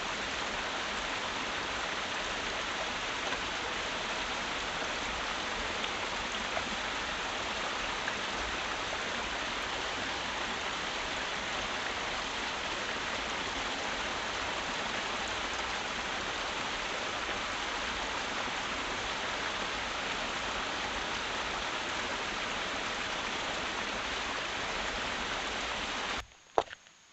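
Steady rain falling, an even hiss of drops that stops abruptly about a second before the end, followed by a single sharp click.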